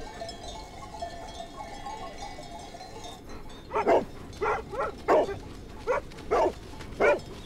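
Livestock-guarding mastiff barking: a run of six loud barks at a steady pace, starting about halfway through.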